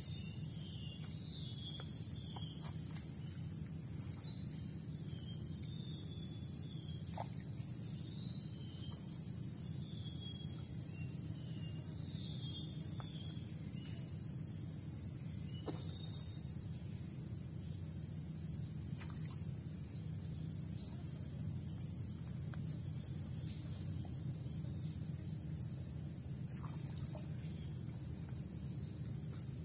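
Steady high-pitched insect drone, with birds chirping during the first half and a few faint ticks.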